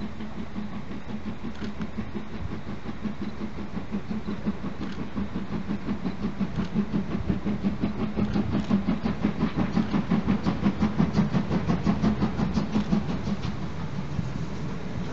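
Steam locomotive 01 0509-8 approaching under steam: rapid rhythmic exhaust beats over a steady low hum, growing louder as it nears and easing off near the end.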